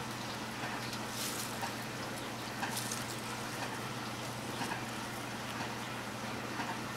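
Steady low hum and hiss with a few faint, short rustles as hands scatter chopped cilantro onto a filled tortilla.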